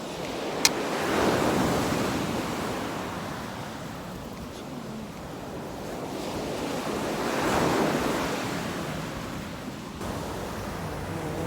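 Ocean surf: two waves break and wash up the shore, about six seconds apart, with a sharp click just before the first.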